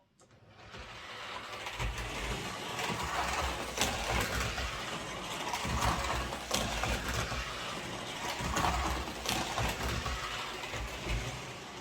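Hornby OO gauge Class A1 model locomotive running along the track: its small electric motor whirrs and its wheels click over the rail joints and points. The sound builds up over the first couple of seconds as it pulls away, then runs steadily.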